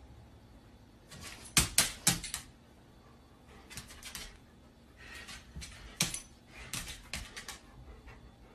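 Golden retrievers' claws clicking and scuffling on a hard floor as the dogs play: a loud cluster of quick taps about a second and a half in, then scattered smaller bursts of taps through the second half.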